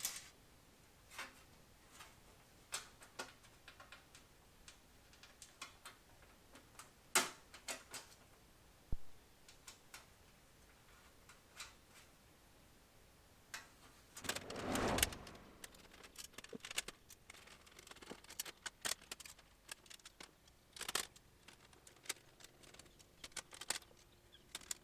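Scattered light metallic clicks and clinks of bolts and nuts being started by hand on aluminum inner fender panels, with a louder handling noise lasting about a second just past halfway.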